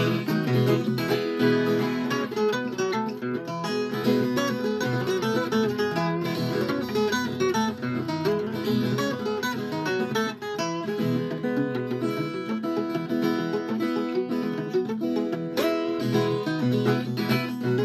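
Viola caipira, the Brazilian ten-string guitar, playing an instrumental interlude of quick plucked and strummed notes between sung verses.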